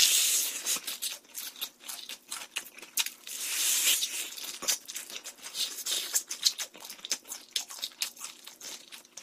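A person biting into and chewing a rice-battered fried chicken drumstick close to the microphone: loud crackly crunches at the first bite and again around three to four seconds in, with many small crackles of chewing in between.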